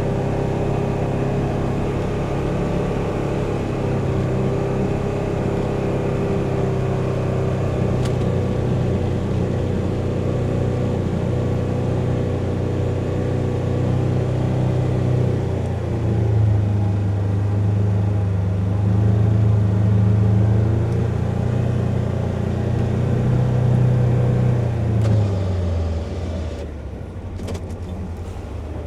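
Polaris Ranger XP 1000 Northstar UTV's twin-cylinder engine running under load while plowing heavy wet snow, heard from inside the enclosed cab. The engine note rises and gets louder a little past halfway, then drops back near the end.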